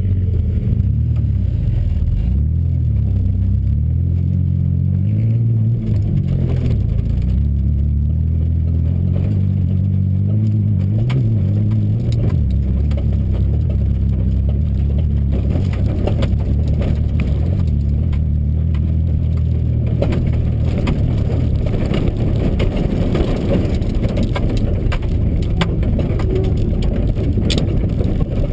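Off-road truck's engine heard from inside the cab while driving over desert sand, its pitch rising and falling during the first dozen seconds. After that it becomes a rougher, steady rumble with many short rattles and knocks.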